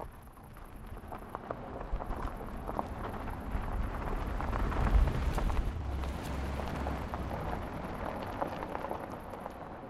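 Mercedes-Benz GLE SUV driving past on a gravel track: tyres crunching over loose stones with a low engine and road rumble, growing louder to a peak about five seconds in, then fading as it pulls away.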